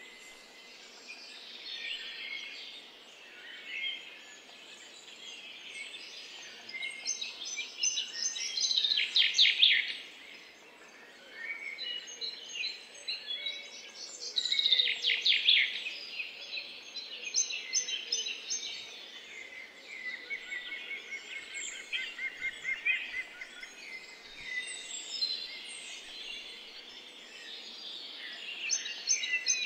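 Small songbirds singing and chirping, with quick rapid trills about a third of the way in and again around the middle, over a faint steady background hiss.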